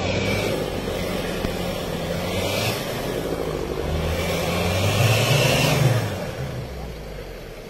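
Toyota Hilux pickup's engine revving under load as it ploughs through deep snow, with its tyres churning snow. The revs build and are loudest about five to six seconds in, then drop away.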